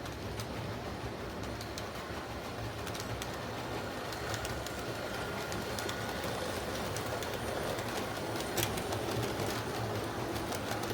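MTH O gauge model diesel locomotive running on the track, its Protosound speaker playing a steady diesel engine rumble, with the wheels clicking irregularly over the rail joints.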